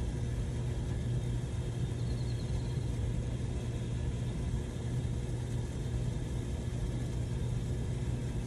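Water pressure pump running steadily with a low hum as it builds system pressure toward its cut-off, slowly enough that the owner finds it strange.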